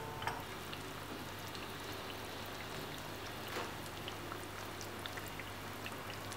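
Sliced shallots in heating oil in a frying pan, just starting to fry: a light steady sizzle with scattered small pops and crackles, two slightly louder ones near the start and about halfway. A low steady hum runs underneath.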